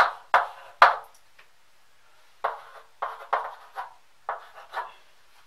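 Chalk writing on a blackboard: three sharp taps and strokes in the first second, a short pause, then a quick run of about eight more strokes from about two and a half seconds in.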